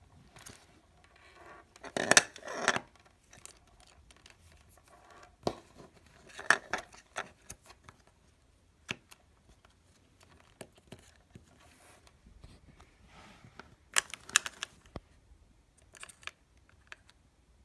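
Clicks, taps and rustling from handling Apple EarPods and their plastic storage case as the cord is wound into it by hand. There are short clusters of clicking and rattling, the loudest about two seconds in, with others near the middle and toward the end, and single clicks between them.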